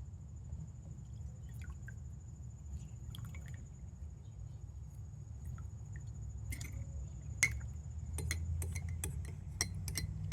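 Glassware and dishes clinking and knocking, a handful of light sharp clinks in the second half, over a steady low hum.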